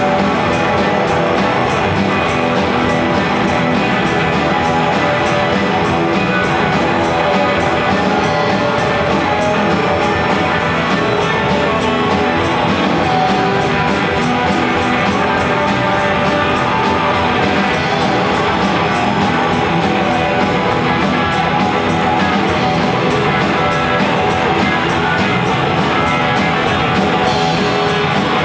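Live rock band playing, with guitar prominent.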